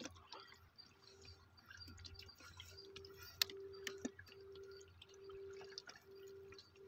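Quiet small clicks of fingers working bait onto a fish hook, over faint water sounds. From about two seconds in, a faint steady hum comes and goes about once a second.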